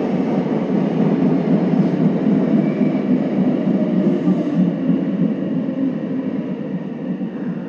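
Running noise of a subway train heard from inside the leading car, a steady rumble of wheels and motors in the tunnel that grows gradually quieter near the end as the train slows for a station.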